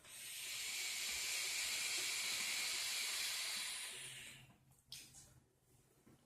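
A steady, airy hiss that builds up over the first second, holds for about three seconds, then fades away; a couple of short faint sounds follow.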